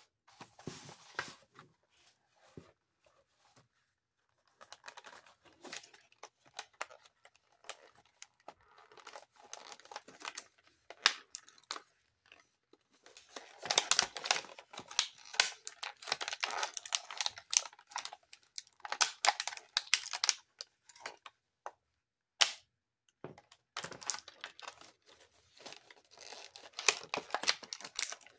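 Clear plastic doll packaging crinkling and crackling as hands pull accessories out of it, in bursts with short quiet gaps; loudest about halfway through.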